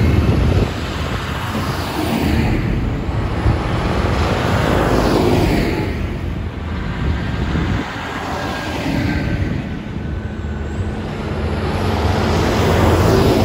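Large John Deere diesel tractors driving past one after another, each engine swelling as it nears and fading as it goes by, with tyre noise on the road.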